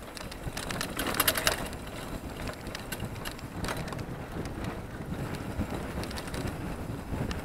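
Wind rushing over the camera microphone and mountain bike tyres rumbling on a dry dirt trail, with a cluster of sharp rattles and clicks from the bike about a second in and a few more later.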